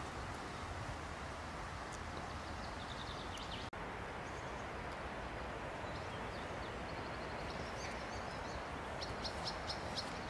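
Steady outdoor background noise with small birds chirping in the trees: short, high notes repeated quickly, in a few bouts, the busiest near the end. The sound drops out for an instant about four seconds in.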